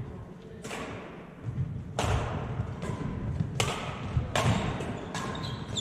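Badminton rackets striking a shuttlecock back and forth in a rally: about five sharp cracks spaced irregularly, each ringing on in a large, echoing gym. Footsteps thud on the wooden court floor between the hits.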